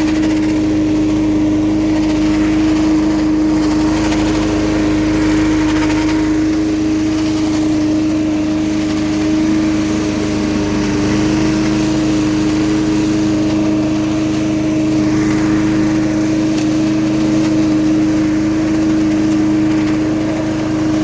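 Billy Goat LB50Q walk-behind leaf vacuum running at a steady speed: its small engine and fan give one strong, unchanging tone over a rushing-air noise.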